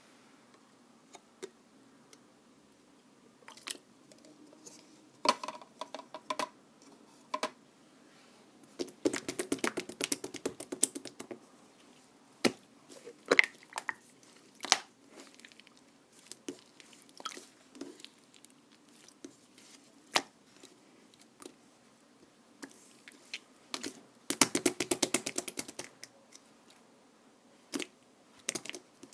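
Clear slime being squeezed and pressed by hand, giving scattered sticky clicks and pops, with two runs of rapid crackling pops lasting about two seconds each.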